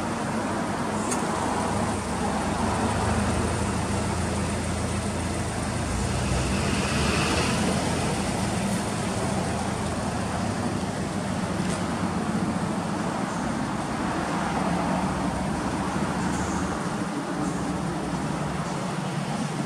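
Subaru Legacy B4's turbocharged flat-four engine idling steadily, heard through its STI aftermarket muffler.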